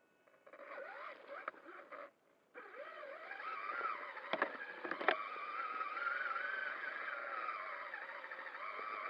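Traxxas Summit RC truck's electric motor and gears whining, the pitch wavering up and down with the throttle. It cuts out briefly about two seconds in, then comes back, with two sharp knocks in the middle.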